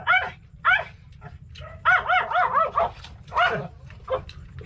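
Small dog barking in short, high-pitched yaps, about eight in all, with a quick run of five in the middle. The barking is taken as angry and wanting attention.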